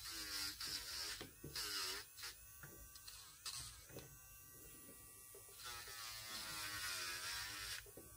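Electric nail drill (e-file) running at about 5,000 RPM on the cuticle area of gel-polished nails. Its motor whine comes in several bouts, dipping in pitch and recovering each time the bit is pressed to the nail, with a hiss during contact.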